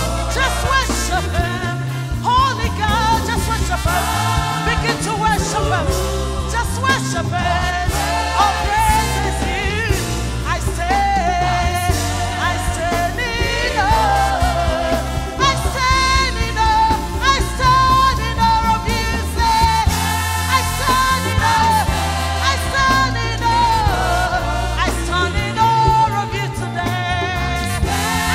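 Live gospel music: a woman sings lead into a microphone with a choir singing behind her, over keyboard and drums, all amplified through the PA.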